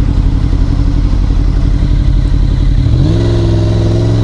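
Motorcycle engine running under way, with a steady rush of noise; about three seconds in the pitch rises quickly and then holds higher as the engine picks up revs.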